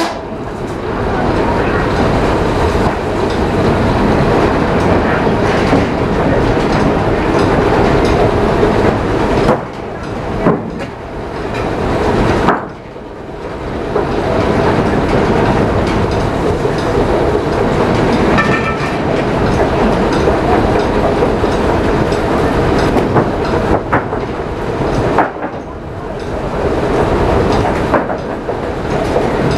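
Frick circular sawmill, belt-driven by a Frick steam traction engine, running loud and steady as the blade cuts through a log. The noise drops away briefly three times.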